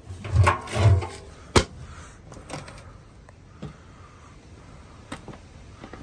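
Front-loading washing machine door pushed shut with a sharp latch click about one and a half seconds in, followed by a few lighter clicks of handling.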